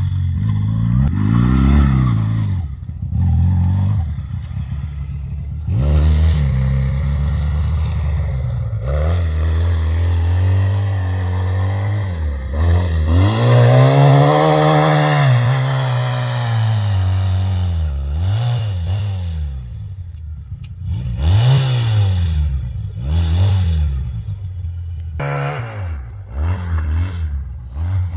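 ATV engines revving up and falling back again and again, with one longer rise and fall about halfway through.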